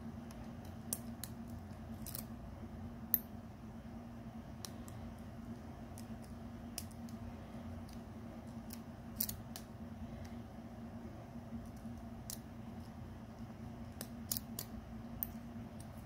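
Lock pick and tension wrench working the pins inside a Master Lock padlock: scattered light metallic clicks and scrapes at irregular intervals, over a steady low hum.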